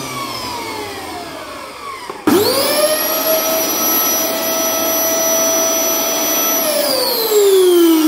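LG VC3318 canister vacuum cleaner's V1J-PH32 suction motor, test-run after repair. It is still whining down in pitch at first. About two seconds in it starts abruptly and spins up within a fraction of a second to a steady high whine. It shuts off near the end and its whine falls as the motor spins down.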